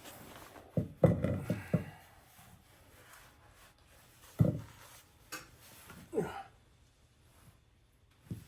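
Several knocks and clunks of metal parts being handled, with a short burst of rattling clunks about a second in and single knocks later on.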